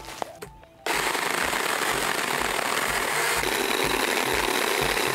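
Ryobi battery-powered chainsaw: the motor starts suddenly about a second in and runs loud and steady, the chain cutting into a dead branch.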